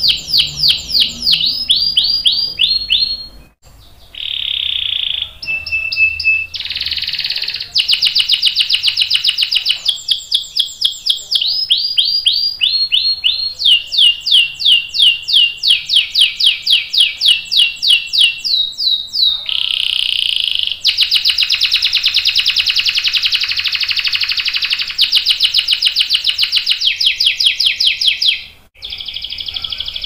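Domestic canary singing a long, loud song: runs of quickly repeated high notes that slide downward, and long rapid rolls, broken twice by a short pause.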